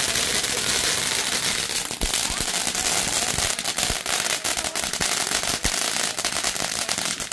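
Ground fountain fireworks spraying sparks: a steady hiss thick with rapid crackling.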